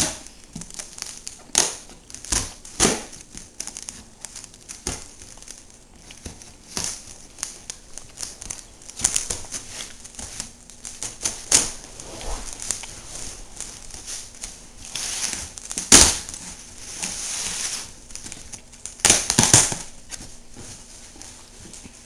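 Domino Rally toy set being unboxed by hand: packaging crinkling and rustling, with many small clicks and clatters of the plastic pieces. A longer stretch of crinkling comes about fifteen seconds in and another near the end.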